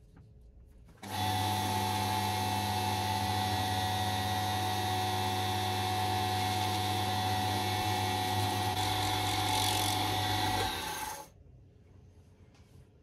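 Small wood lathe motor switched on about a second in, running steadily with a low hum and a higher whine, then switched off about ten seconds later. It spins a maple-and-epoxy pen blank on the mandrel while a cloth applies oil finish.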